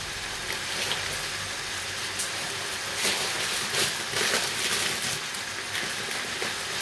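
Garlic sizzling in hot olive oil in a pot: a steady frying hiss with scattered small crackles.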